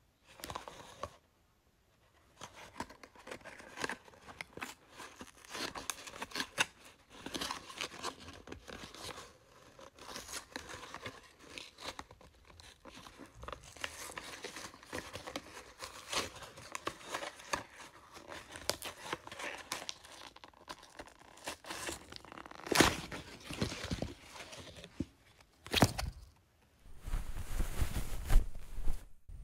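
Gift-wrapping paper being torn open and crumpled by hand, an irregular run of ripping and crinkling with two louder tears near the end.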